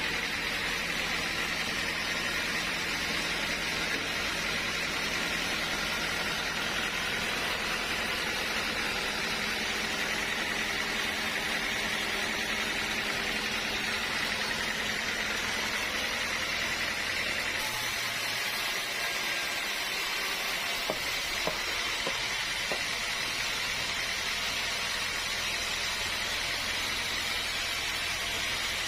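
Sawmill machinery running steadily with an even hiss. The low hum beneath it drops away about eighteen seconds in.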